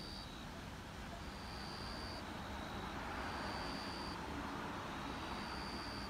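A vehicle passing on the road: a rise and fall of tyre and engine noise that peaks in the middle. A faint high-pitched tone sounds for about a second every two seconds.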